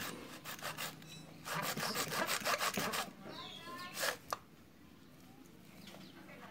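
A bare hacksaw blade sawing through the plastic case of a GS GTZ5S sealed maintenance-free motorcycle battery, cutting around the lid in quick back-and-forth strokes. The sawing stops about four seconds in.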